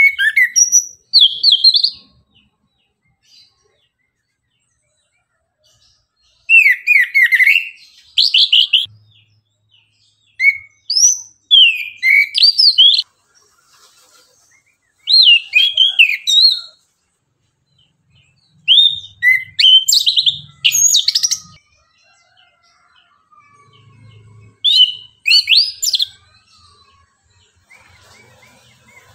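Chestnut-capped thrush (anis kembang) singing: about six bursts of rapid, clear whistled phrases, each a couple of seconds long, with pauses of a few seconds between them.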